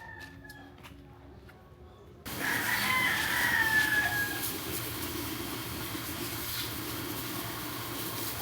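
A rooster crowing: a faint crow at the start, then a louder, falling crow about three seconds in, over a steady background hum that jumps up suddenly just before it.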